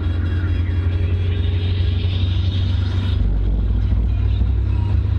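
Audi 80 2.0E's ABK four-cylinder engine and road noise heard inside the cabin at a steady cruise of about 100 km/h, with a loud low drone. About three seconds in, the drone drops lower.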